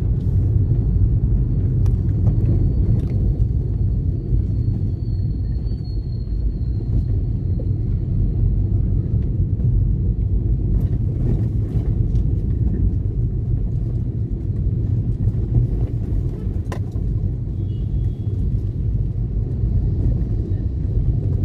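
Steady low rumble of road and wind noise from a moving vehicle, with a faint thin high whine over roughly the first nine seconds.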